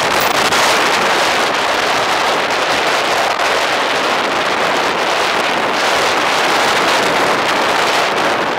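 Steady rushing wind noise on the microphone of a camera mounted on moving bicycle handlebars.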